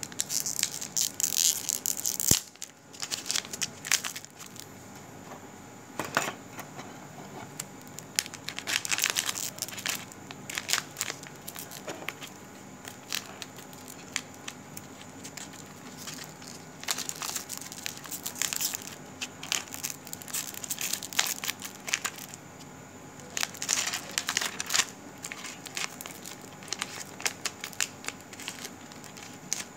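Irregular crackling and rustling rubbing noises close to the microphone, coming in clusters of a second or two with quieter gaps between them.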